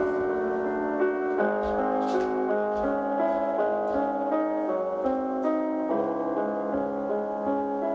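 Background piano music: a slow run of sustained chords and melody notes over a held low bass note.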